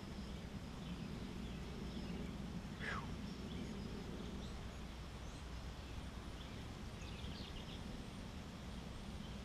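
Outdoor ambience: a steady low rumble with a wild bird's single falling call about three seconds in and a quick run of short chirps about seven seconds in.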